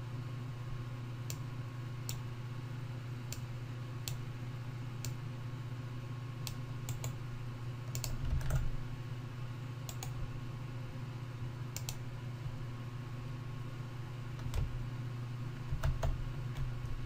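Scattered, irregular clicks of a computer keyboard, about a dozen spread across the stretch with long gaps between them, over a steady low hum.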